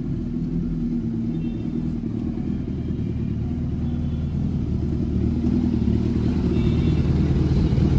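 Suzuki Hayabusa's inline-four engine, fitted with an SC Project aftermarket exhaust, idling and running at low revs as the bike is ridden slowly. A steady low rumble that grows gradually louder.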